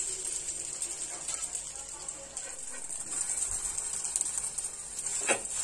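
Butter sizzling under pav buns toasting in a nonstick frying pan, a steady hiss, with a light knock near the end.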